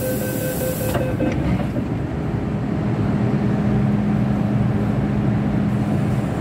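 Hong Kong MTR subway train at a station platform: a steady low rumble and hum, with a loud hiss that cuts off about a second in.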